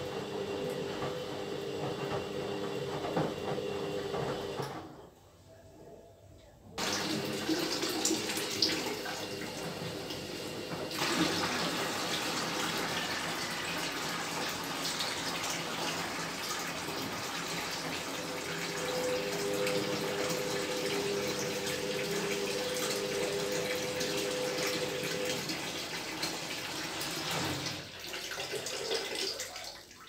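Synix 7 kg front-loading washing machine draining rinse water: the drain pump hums while water pours from the drain hose and splashes into a plastic bucket. There is a short lull about five seconds in, and a heavier gush from about eleven seconds in.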